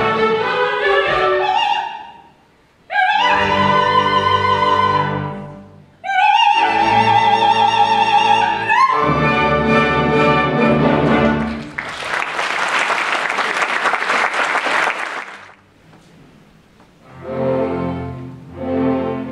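Theatre orchestra playing lively dance music in short phrases with sharp breaks between them. About twelve seconds in the music stops and the audience applauds for about three seconds, then the orchestra starts up again near the end.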